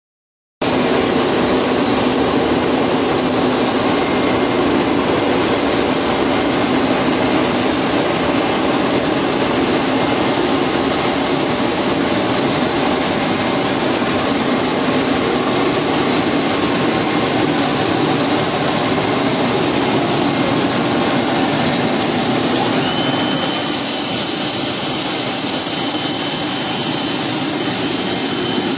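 YJF-70-1600L LDPE blown film extruder line running: a loud, steady machine noise of motors and blowers with a high steady whine. It starts abruptly, and about 23 seconds in a brighter hissing rush and a second steady tone join it.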